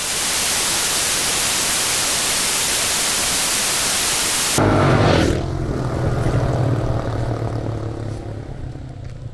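Loud, steady static hiss that cuts off suddenly about four and a half seconds in. A lower rumble with a steady low hum follows and slowly fades.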